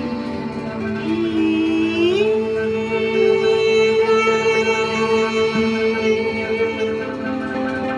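Sound-healing music of sustained droning tones, with a long held voice-like tone that slides up in pitch about a second in and then holds.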